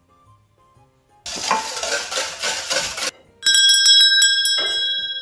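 Subscribe-button bell sound effect: a small bell rings rapidly for about two seconds from midway, bright and fading slowly. It comes after a harsh burst of noise lasting nearly two seconds.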